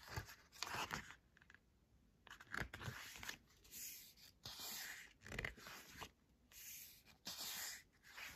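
Glossy pages of a K-pop album photobook being turned and smoothed flat by hand: a string of faint paper swishes and rustles with short pauses between.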